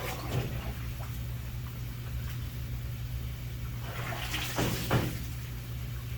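Hot water splashing and running over a Mopar 360 cylinder head being rinsed, over a steady low hum from the washing equipment. The water surges louder about half a second in and again around four to five seconds in.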